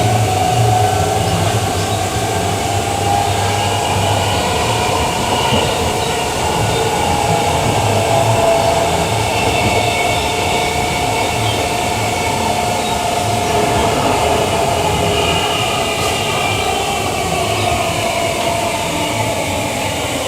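Queensland Rail EMU electric train running between stations, heard on board: a steady rumble with a whine in several thin tones that drifts gently up and down in pitch.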